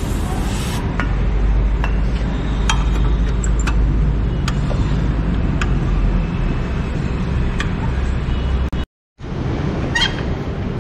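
A short aerosol spray hiss ends about a second in. After it come scattered light metallic clinks of a hand tool working the rusted exhaust fastenings of a Yamaha FZ, over a steady low rumble. The sound drops out for a moment near the end.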